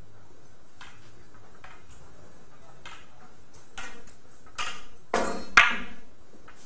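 Billiard balls clicking against each other and rolling on the table: a few faint clicks, then a quick run of four louder knocks with short ringing tails in the second half, the loudest about five and a half seconds in.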